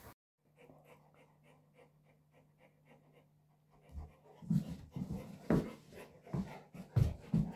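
Cane Corso panting: faint and quick at first, then louder, heavier breaths about twice a second from about halfway through.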